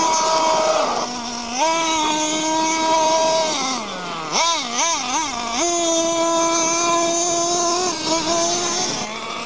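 Losi 5T RC truck's small two-stroke petrol engine running at high revs, its whine holding steady and dipping and rising with the throttle. About four seconds in the revs fall away, then come three quick throttle blips before the note holds high again, falling off near the end.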